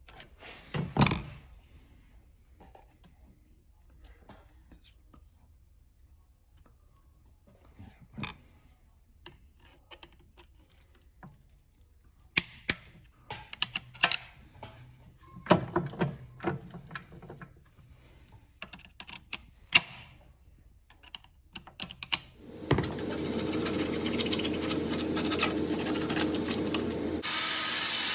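Scattered metallic clicks and knocks of hand tools working on a drive chain. About 23 seconds in, a steady machine noise starts up, and it turns louder and hissier a few seconds later.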